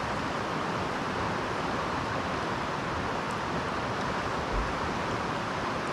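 Steady rushing of a nearby stream running over rapids, an even hiss without rhythm, with one soft low thump about four and a half seconds in.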